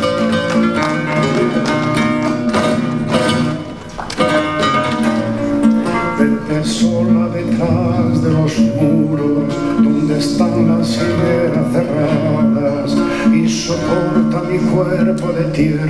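Two acoustic guitars playing an instrumental passage together, plucked melody over rhythmic strummed chords in a Spanish, flamenco-tinged style, with a brief drop in the playing about four seconds in.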